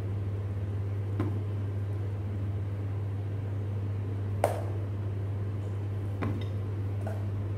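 Three light clinks of a metal spoon against a stainless steel pot as cooked instant noodles are scooped out into a bowl. The loudest clink comes about halfway through, with a steady low hum underneath.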